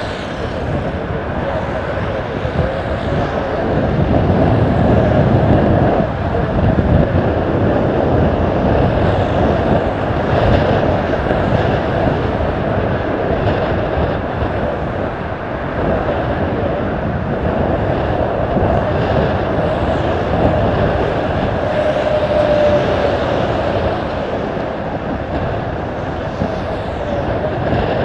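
Airbus A320 jet engines heard from a distance as the airliner flares, touches down and rolls out on the runway: a steady, broad rumble, loudest about four to seven seconds in.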